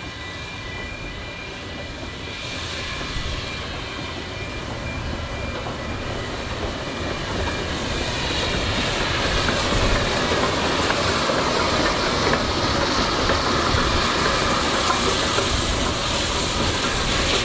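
South African NGG16 Garratt steam locomotive on 2 ft narrow-gauge track, drawing near and passing close by, growing steadily louder as it comes alongside.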